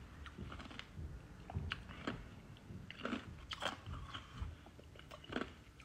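Faint chewing and mouth clicks close to a phone's microphone: scattered small ticks and crunches, with brief faint vocal sounds about three seconds in and near the end.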